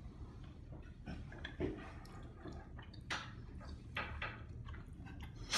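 Faint handling sounds: a few soft taps and clicks, spaced about a second apart.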